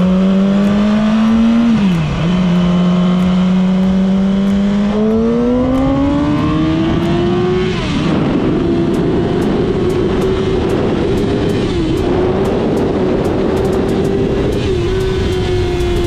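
2007 Yamaha R6's inline-four engine through its stock exhaust with link pipe, heard on board while riding. The note dips briefly about two seconds in, climbs steadily from about five to eight seconds as the bike accelerates, then holds at a higher, rougher pitch with short dips near the end, with wind rush over the bike.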